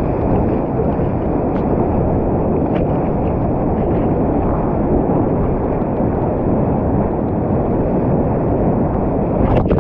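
Steady, loud roar of rushing whitewater in a pumped whitewater channel, with a short knock near the end.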